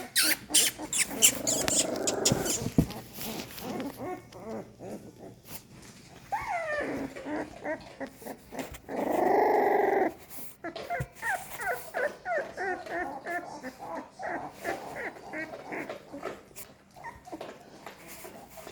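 Young American Staffordshire terrier puppies whining and squeaking, with one longer cry about nine seconds in and a run of short, quick squeaks in the second half.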